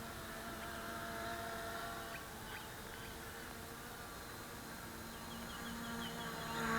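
HK FPV250 mini quadcopter with C20 brushless motors flying, its propellers giving a steady multi-tone buzz that grows louder near the end as it comes closer.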